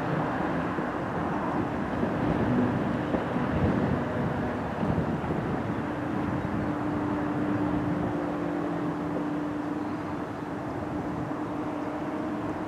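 Steady distant vehicle rumble with a low, even hum that holds one pitch.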